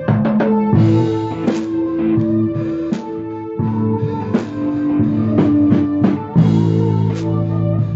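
A live instrumental band jam: an electric guitar and a drum kit play together, with held notes over regular drum hits.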